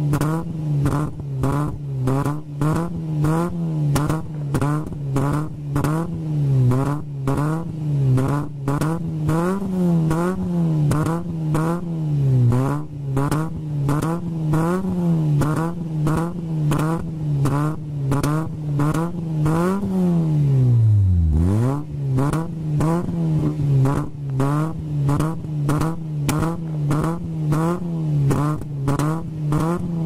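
Citroën Saxo VTS four-cylinder engine held at about 3,800 to 4,000 rpm by the throttle alone, breathing through a BMC induction kit and a 2-inch Supersprint straight-through exhaust. The revs waver up and down about once a second, and about 21 seconds in they drop sharply and climb back.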